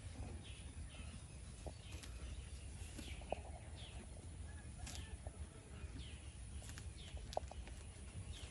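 Goats feeding on a pile of fresh leafy fodder: faint chewing and leaf noise with two sharp clicks, about three and seven seconds in. Short bird chirps come and go over a low steady rumble.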